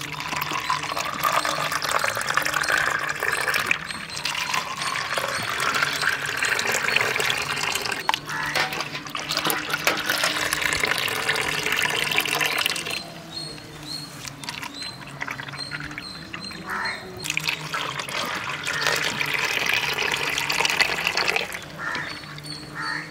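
Thick blended black-grape juice poured in a thin stream into plastic cups, one cup after another; the splashing rises in pitch as each cup fills, with a quieter pause midway.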